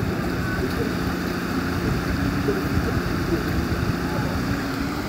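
A van's engine running with a steady low hum as it drives through a flooded river crossing, over a constant rush of water and wind buffeting the microphone.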